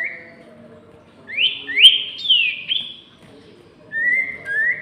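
Sirtu (common iora) songbirds singing loud, clear whistled notes that each sweep upward: a quick run of four about a second and a half in, then two more near the end, as two birds answer each other in a song duel.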